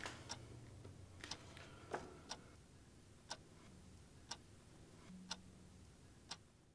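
A clock ticking faintly and evenly, about once a second, over a low hum. It cuts off near the end.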